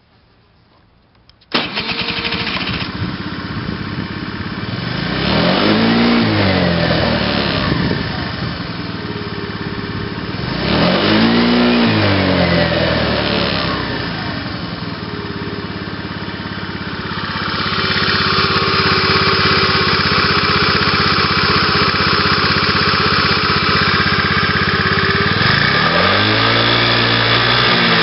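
Honda Today 50cc four-stroke scooter engine starting about a second and a half in and settling into an idle. It is blipped three times, revving up and back down each time, as its idle is checked for abnormal noises.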